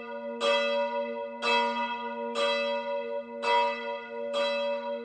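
A single church bell tolling, struck about once a second, every stroke on the same note, with a low hum ringing on continuously beneath the strikes.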